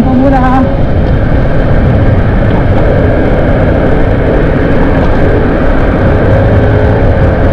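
Loud, steady wind rush over the microphone of a motorcycle moving at road speed, with a faint engine hum underneath.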